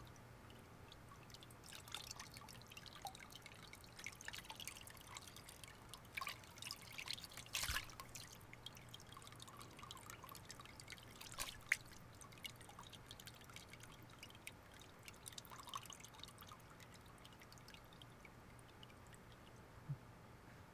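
Faint water from a washbasin tap, a thin stream splashing and dripping into the basin in irregular small patters.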